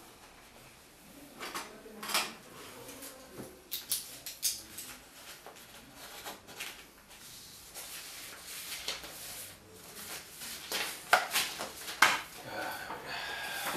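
Sheets of paper being handled and leafed through at a desk: irregular crisp rustles with a few sharp taps, the loudest about eleven and twelve seconds in.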